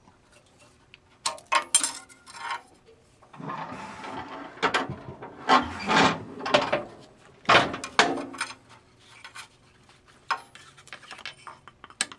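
Irregular clanks, clicks and scraping as steel clamps and a 5052 aluminium sheet part are handled on a sheet-metal finger brake. There is a rustling stretch about three and a half seconds in, and the sharpest knocks come around six and eight seconds.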